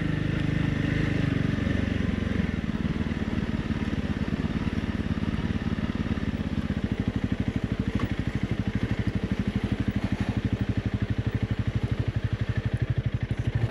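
Honda CRF 300 Rally's single-cylinder four-stroke engine running as the bike is ridden off-road. About halfway through the revs drop and the engine settles into an even, low chugging.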